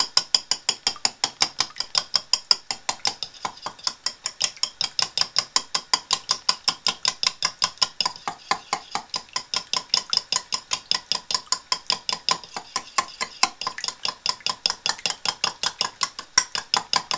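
A fork beating eggs and milk in a ceramic bowl, clinking rapidly and steadily against the bowl's sides, about five strokes a second.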